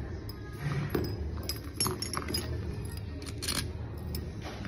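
Small metal parts and fittings clinking and ticking as they are handled and fitted during assembly of a CS4 compressor cylinder: a scatter of short metallic clicks, loudest about three and a half seconds in.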